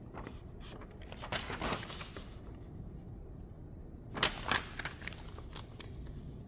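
Paper pages of a stapled booklet rustling and crackling as they are turned by hand, in two bursts: one about a second in and a shorter, louder one about four seconds in.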